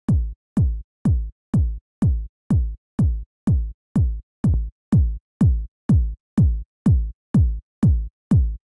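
Layered house/techno kick drum looping four-on-the-floor, about two hits a second. Each hit has a hi-hat tick on top, a click layer filling the mid frequencies, and a low kick that drops in pitch into a deep tail. The click bridges the low kick and the hat so that they sound like one full kick.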